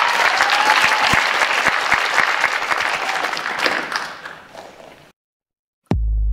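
Audience applause that fades and cuts off about five seconds in. After a short silence, a hip-hop dance track with a heavy bass beat starts just before the end.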